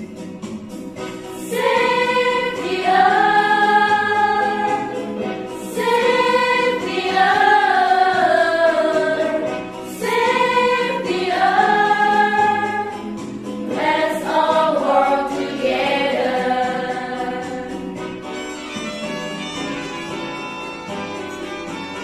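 Background music: a choir sings slow, long-held phrases over instrumental accompaniment, a new phrase about every four seconds. The voices fade out near the end, leaving only the accompaniment.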